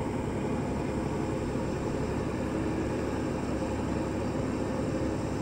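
Steady engine drone: a continuous low hum over an even background noise, with no change in level.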